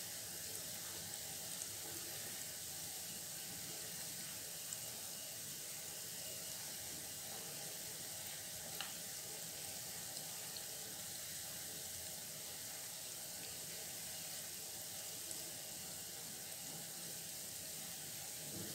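Lentil-batter Mysore vadas deep-frying in hot oil in a pan: a steady sizzle, with a few faint ticks as a spatula turns them.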